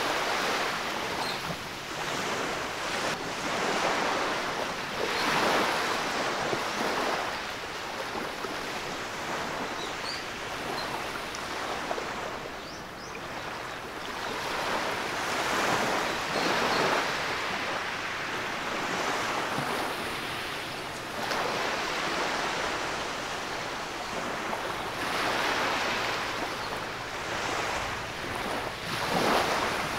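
Small waves of surf washing up over a sandy beach and draining back, a steady rush of foam and water that swells and fades several times.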